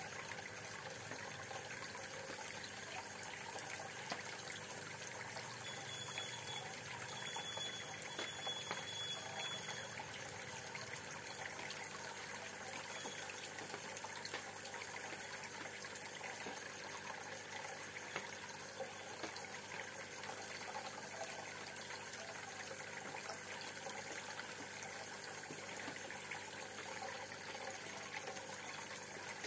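Aquarium water bubbling and trickling steadily from the tank's aeration, a constant stream of rising bubbles breaking at the surface, over a faint steady hum.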